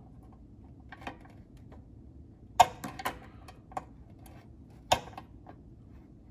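Irregular small clicks and ticks as a knife blade scrapes at the coating of a fine wire against the scale's plastic housing, the sharpest about two and a half seconds in and again near five seconds.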